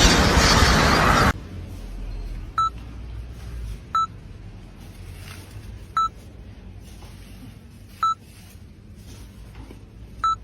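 A loud rushing noise stops abruptly about a second in. Then come five short, high electronic beeps, one every one and a half to two seconds, over a quiet background.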